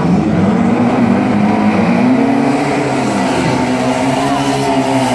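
Turbocharged VW Beetle drag car's engine revving hard, its pitch climbing, dipping about two seconds in, then climbing and holding before it falls away at the end.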